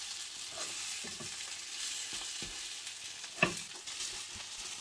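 Crumpets with egg sizzling in a frying pan, while a wooden spatula scrapes and knocks against the pan as they are separated and flipped. There is one sharper knock about three and a half seconds in.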